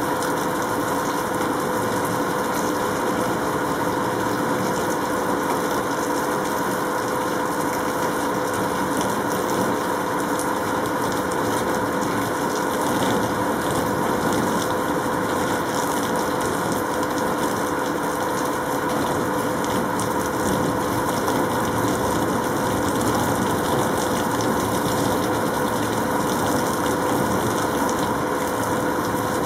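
A steady machine-like hum with a constant hiss, unchanging throughout.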